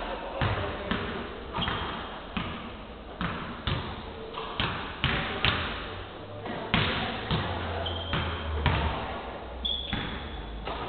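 Basketballs bouncing on a hardwood court in a large, echoing gym, roughly two bounces a second in an uneven rhythm from more than one ball. A few short high squeaks are heard among them.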